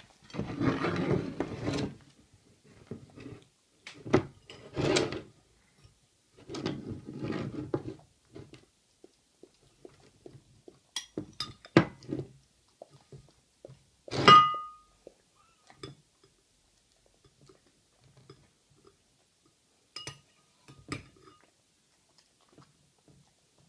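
A metal spoon scraping and clinking in a ceramic bowl and a dog licking food off it, in short bursts. One clear, ringing clink comes about fourteen seconds in.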